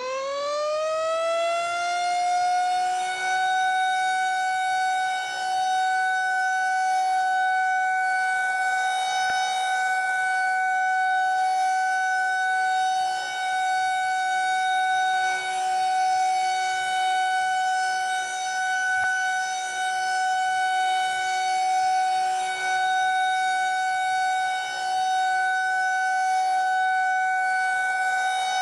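Federal Signal 2001-130 rotating outdoor warning siren sounding the steady Alert signal. It is still winding up in pitch for the first few seconds, then holds one steady tone, its loudness dipping now and then as the head rotates.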